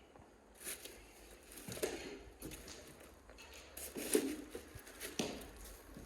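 A handful of light, irregular knocks and scuffs, about five in all, the sharpest one about four seconds in.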